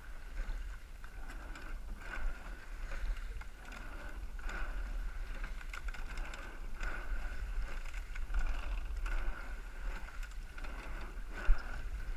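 Eight-oared rowing shell underway at race pace: the oars' strokes sound in a rhythm about every two seconds, over steady water and wind rumble and a faint steady tone.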